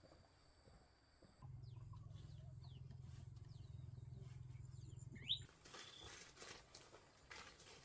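Faint bird chirps, short falling notes with one louder rising chirp a little past the middle, over a low steady hum that stops soon after. Soft rustling follows near the end.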